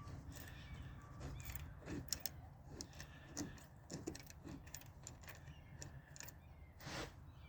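Faint, irregular metallic clicks and clinks of hand tools and small parts being handled while a seat belt washer is taken off.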